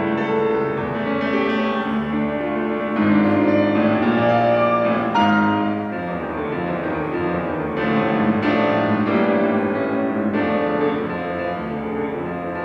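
Solo piano playing a classical piece, a continuous flow of notes across the keyboard.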